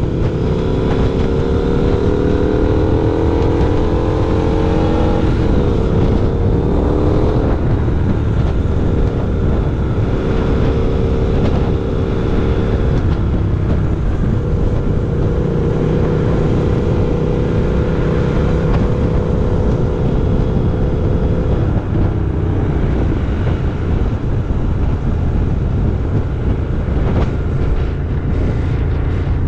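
Triumph Scrambler 1200's 1200 cc parallel-twin engine through an aftermarket Total Triumph slash-cut exhaust, pulling hard with the pitch climbing and stepping through shifts over the first several seconds. It then runs at a steady pitch and eases off in the last few seconds, over a low wind rumble on the microphone.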